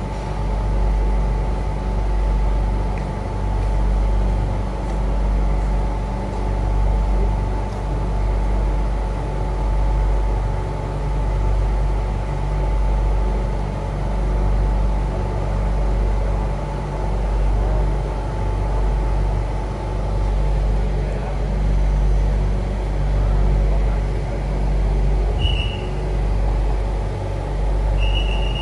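Steady low hum of a Bangkok Airport Rail Link train standing at a station with its onboard equipment running, with several steady tones over it and a slow rise and fall. Two short high beeps sound near the end.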